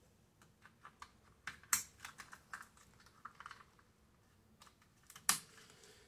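Scattered light plastic clicks and rattles from handling a door's power-window master switch panel and its wiring connectors, with a sharper snap about five seconds in.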